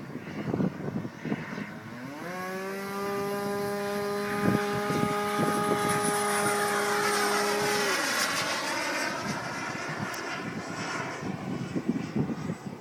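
Remote-control model airplane's motor climbing quickly in pitch about two seconds in, then holding a steady high whine. Around eight seconds in the tone drops away as the plane passes by. Gusts of wind on the microphone come before and after.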